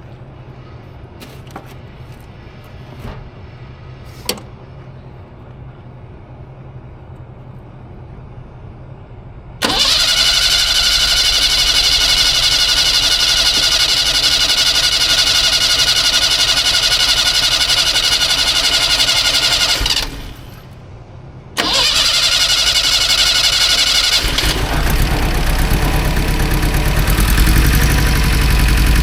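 Car engine cranked on the starter motor, starting suddenly about ten seconds in and running for about ten seconds, then cut off. After a short pause it is cranked again, and a few seconds later it catches and keeps running with a heavier low rumble.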